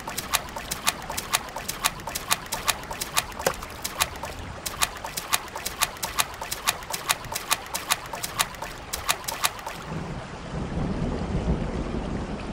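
A child's bare feet stamping and splashing in a shallow rainwater puddle on concrete: a quick, irregular run of sharp slaps, about three or four a second, over steady rain. Near the end the slaps stop and a low rumble of thunder and rain comes up.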